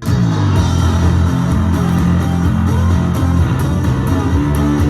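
Intro music: guitar-led rock with bass and a steady beat.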